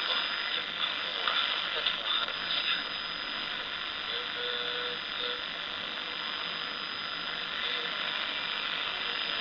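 Portable shortwave radio receiver's loudspeaker playing a weak shortwave broadcast that is mostly static hiss, with a steady high whistle and crackles during the first few seconds.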